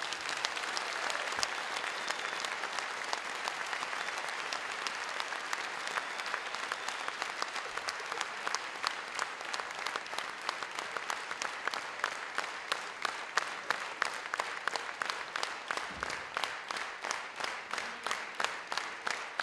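A theatre audience applauding. About halfway through, the applause settles into rhythmic clapping in unison, around two to three claps a second.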